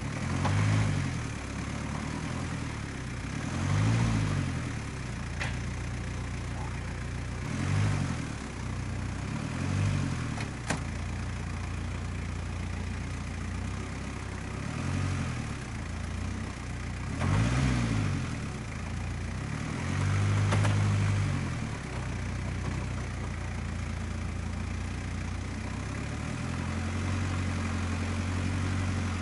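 Jeep Cherokee XJ's engine idling, blipped up and back down every few seconds as the stuck Jeep tries to get off the dirt mound. One sharp click about eleven seconds in.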